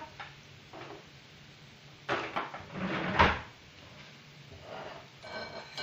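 Kitchen cupboard being opened and shut, with a cluster of knocks and a clatter about two to three seconds in and a short squeak near the end.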